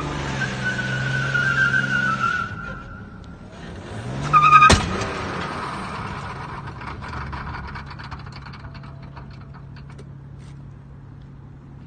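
Estate car's engine running and revving up and down twice, with one sharp bang about four and a half seconds in. It then settles to a steady low idle.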